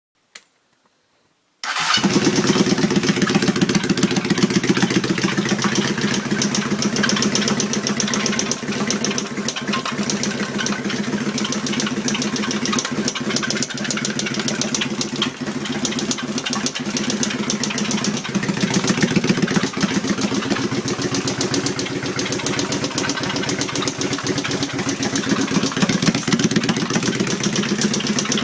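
Honda Steed motorcycle's V-twin engine starting about two seconds in and then running steadily, making an abnormal noise that the owner calls strange.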